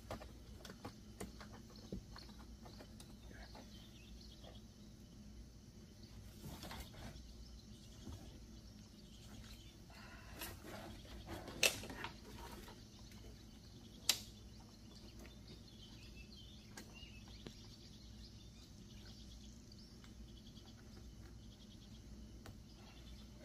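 Faint handling noises from a mesh sunshade and its strap fasteners being worked into place: scattered rustling and light clicks, with two sharp clicks a little past halfway, over a low steady hum.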